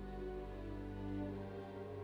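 Soft background music: slow, held string notes, violin and cello, in a calm, melancholy style.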